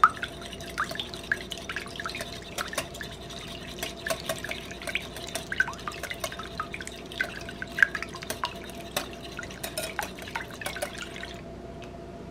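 Wire whisk beating milk, egg and vanilla in a glass bowl: rapid, irregular clicks and taps of the wires against the glass with liquid sloshing, stopping suddenly about a second before the end.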